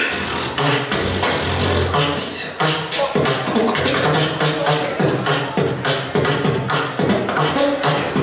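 Beatboxing: mouth-made kick and snare hits in a steady fast rhythm, with hummed bass notes and short pitched vocal lines underneath.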